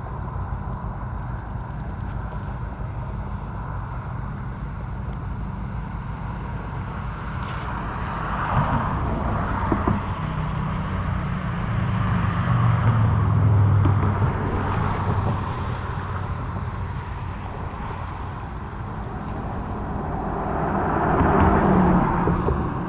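Road traffic: a steady low rumble with cars passing, swelling and fading about a third of the way in, again around the middle, and once more near the end.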